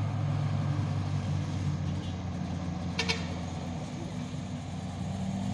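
A motor vehicle's engine running at a low steady hum, fading somewhat after about four seconds. A brief high-pitched chirp cuts through about three seconds in.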